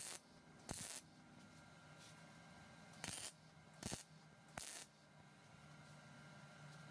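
Wire-feed MIG welder laying short tack welds on steel bar: five brief bursts of arc crackle, each well under half a second, with pauses between.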